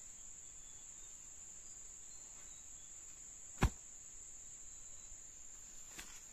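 Steady high-pitched drone of forest insects, with a single sharp knock about three and a half seconds in.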